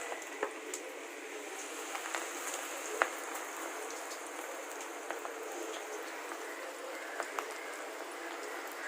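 Onion pakoda frying in hot oil: a steady sizzle scattered with small pops and crackles, one sharper pop about three seconds in.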